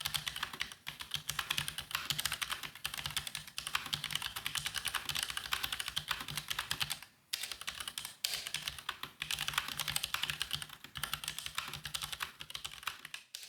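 Fast typing on a Tecware Phantom L low-profile mechanical keyboard with Outemu red linear switches and ABS keycaps: a dense stream of keystroke clacks with a few brief pauses.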